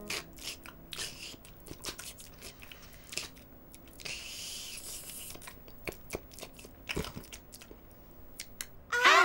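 Crisp toast being bitten and chewed: an irregular string of short crunches, with a faint steady hum beneath. Just before the end a loud horn-like tone swells in.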